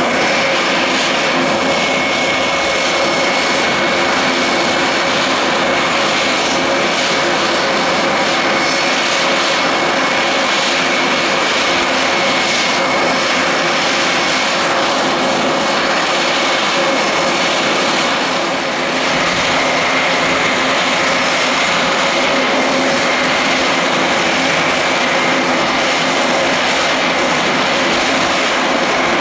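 Grob 109B motor gliders' piston engines and propellers running steadily in flight, with a brief dip in loudness about two-thirds of the way through and a slight rise in pitch after it.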